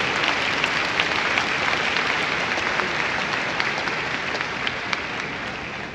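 Large audience applauding, the clapping slowly dying down near the end.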